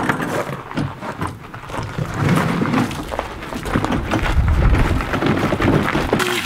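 A two-wheeled garden cart loaded with plastic buckets of grain rolling and rattling over gravel, with footsteps crunching; it gets louder and steadier about two seconds in as the cart gets going.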